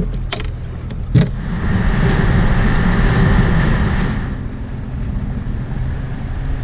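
Boat motor running steadily as the boat moves through the water, with water rushing along the hull and wind on the microphone. The rush swells loudest from about one and a half to four and a half seconds in; two sharp knocks come in the first second and a half.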